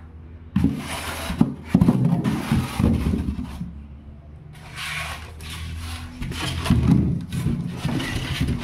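Newspaper rustling and crinkling in two long stretches as a sheet is handled and laid over a styrofoam box, over a steady low hum.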